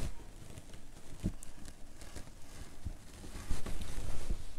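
Small rotary cutter rolling through embroidered tulle on a cutting mat: a faint scratchy cutting sound with a few soft knocks, a little louder about three and a half seconds in.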